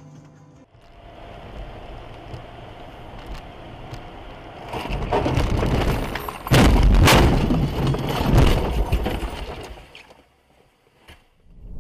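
Car crash heard from inside a vehicle: steady driving noise rises, then two loud impacts about half a second apart land some six and a half seconds in. A few seconds of crashing and breaking follow, then the sound cuts off.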